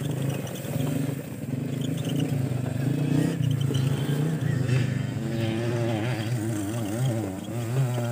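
Dirt bike engines running on a downhill trail. The engine note holds fairly steady at first, then wavers quickly up and down in pitch from about five seconds in.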